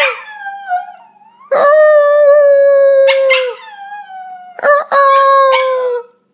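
Italian Greyhound puppy howling: the end of one howl, then two long howls of about two seconds and a second and a half, each holding a steady pitch and dropping slightly as it ends.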